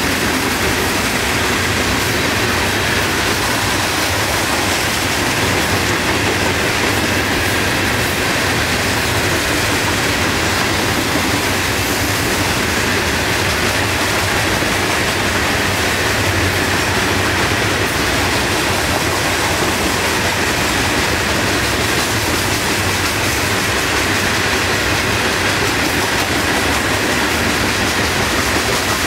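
Florida East Coast Railway freight train of boxcars and covered hoppers rolling past close by, its wheels running on the rails in a steady, unbroken noise.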